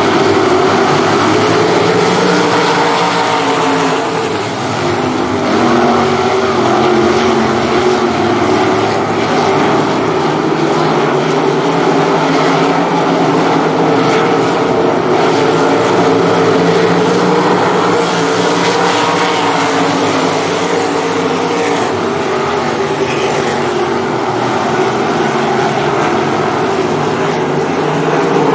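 A pack of 305 winged sprint cars racing on a dirt oval: several 305-cubic-inch V8 engines running hard at high revs, their overlapping notes rising and falling as the cars go around. The sound stays loud the whole time, dipping briefly about four seconds in.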